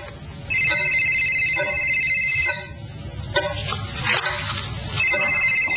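Mobile phone ringing with an electronic warbling trill: one ring of about two seconds, a pause, then a second ring starting about five seconds in, over a low background rumble.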